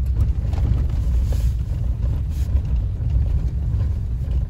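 Car driving on a snow-covered street, heard from inside the cabin: a steady low rumble of engine and tyre noise.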